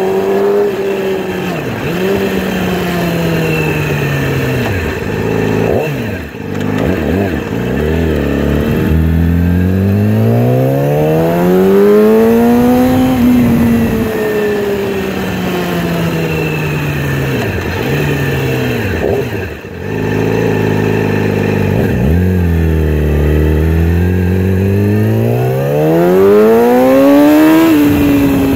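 2016 Yamaha R6's inline-four engine through a Toce 3/4 exhaust with the catalytic converters cut out, ridden on the road. It is repeatedly revved up and eased off, its pitch climbing and falling over several seconds at a time, with two brief dips in loudness.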